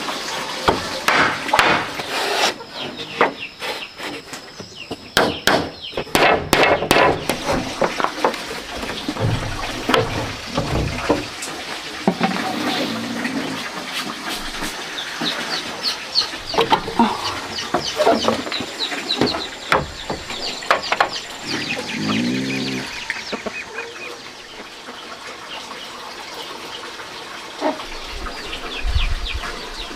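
Chickens clucking, with short knocks and clatter scattered through, thickest in the first several seconds.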